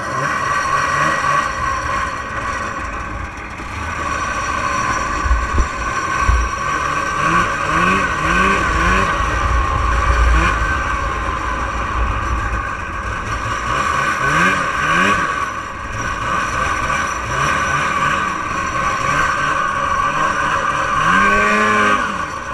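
1989 Arctic Cat Jag 440's fan-cooled two-stroke twin engine running hard as the snowmobile is ridden, its note rising again and again as the throttle is opened, about seven, fourteen and twenty-one seconds in. A few low thumps come around five and ten seconds in.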